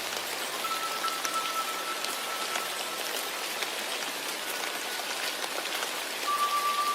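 Steady rain falling, with a Tibetan singing bowl's long ringing tones faintly over it; a new, slightly louder tone comes in near the end.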